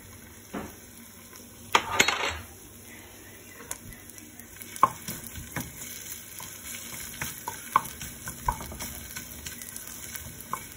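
Wooden spatula stirring chopped ginger in a nonstick frying pan: scattered knocks and scrapes against the pan over a light sizzle of the ginger frying in oil. A louder clatter comes about two seconds in.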